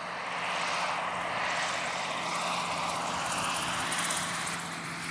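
Light single-engine propeller plane flying low past, a steady engine and propeller drone that swells about a second in and eases slightly near the end.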